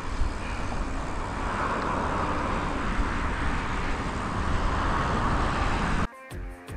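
Steady rush of wind buffeting a helmet-mounted camera while riding a mountain bike on a paved road, with the hum of the tyres rolling on asphalt. About six seconds in it cuts off abruptly and electric guitar music starts.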